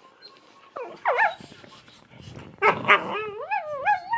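A dog making whining, grumbling vocalizations during play: a short wavering call about a second in, then a louder, longer one whose pitch rises and falls several times near the end.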